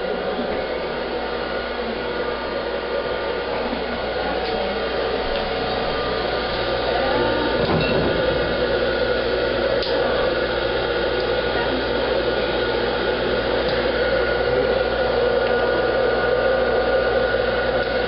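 Electric popcorn machine running with a steady blowing hum, a little louder from about seven seconds in, while the kernels heat before popping.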